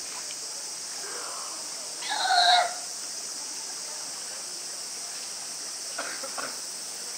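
California sea lion pup giving one loud call, under a second long, about two seconds in, with fainter short calls near the end. A steady high insect hiss runs underneath.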